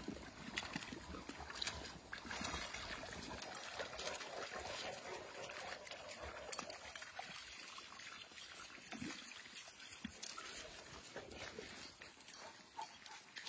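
Large dogs splashing and wading through a shallow muddy puddle: water sloshing and dripping under their paws, with scattered sharp steps and splashes. The busiest splashing comes about two to five seconds in, then it thins to quieter paw steps.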